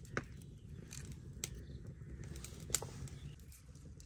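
Garlic cloves being peeled by hand, the dry papery skins crackling and snapping in a few sharp little clicks over a low steady background rumble.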